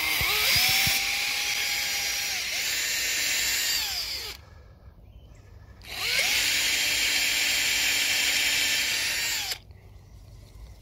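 Cordless drill-driver boring into a birch trunk, run in two bursts of about four seconds each with a short pause between, the motor winding down at the end of each. It is drilling the tap hole for drawing birch sap.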